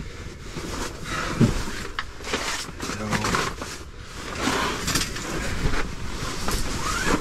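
A camp cot being shifted and dragged around inside a small ice-fishing shelter: rustling and scraping with scattered knocks, the sharpest about one and a half seconds in.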